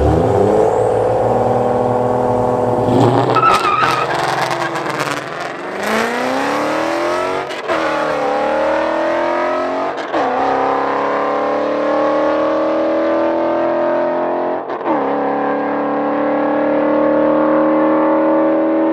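Car engine at full throttle, pulling hard through the gears: the pitch climbs, then drops sharply at each of four upshifts, the gaps between shifts lengthening.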